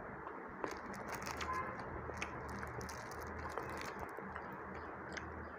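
Faint chewing and small soft clicks from handling a piece of sweet, over a low steady room hum.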